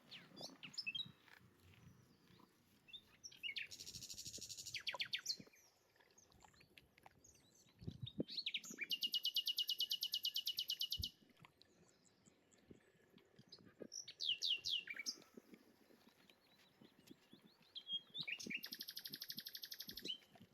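Songbirds singing outdoors: four fast, rapidly repeated trills a few seconds apart, the longest about three seconds, with scattered chirps between them. A soft low knock comes about eight seconds in.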